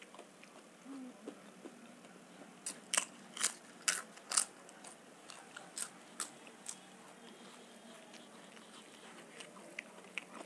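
Crisp papad crunching: about five sharp, loud crunches a few seconds in, then lighter ones trailing off.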